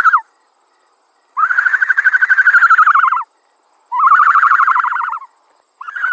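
A bird's rapid trilled calls: three loud runs of quick whistled notes, each lasting one to two seconds and falling slightly in pitch towards its end, with short silent gaps between.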